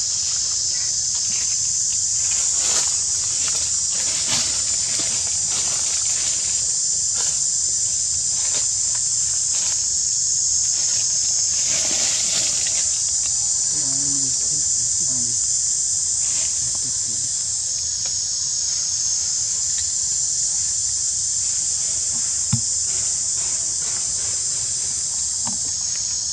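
Insect chorus: a loud, steady, high-pitched drone, with a few faint clicks and rustles.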